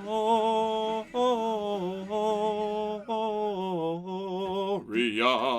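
A man's voice singing out long, drawn-out notes, each held about a second with short breaks between, ending in a rising, wavering note.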